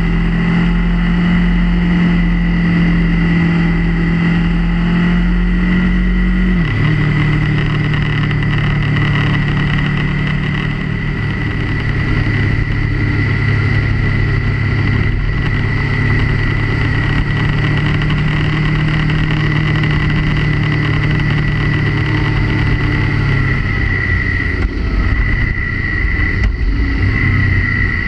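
Motorcycle engine running at a steady cruise, its note dropping abruptly in pitch about seven seconds in as it shifts up a gear, and falling a little lower again near the end. Wind noise on the helmet or bike-mounted camera's microphone comes with it.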